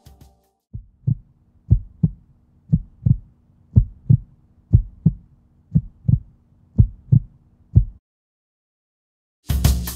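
Heartbeat: about seven slow double thumps, one pair a second, stopping about eight seconds in. A drum kit starts near the end.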